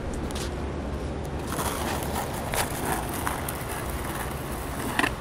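Skateboard wheels rolling over rough asphalt, a steady rumble, with a couple of sharp clacks near the end.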